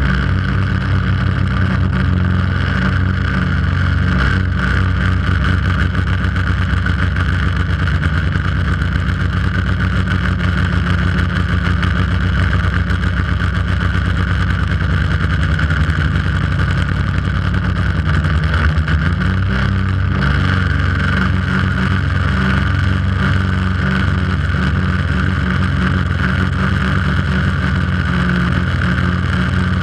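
Quadcopter's electric motors and propellers buzzing steadily, recorded by the camera mounted on the drone in flight. The pitch shifts a little about two-thirds of the way through.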